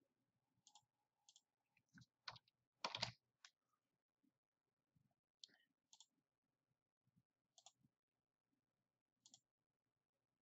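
Faint, scattered clicks of a computer mouse and keyboard, about ten in all, with a louder quick cluster about three seconds in.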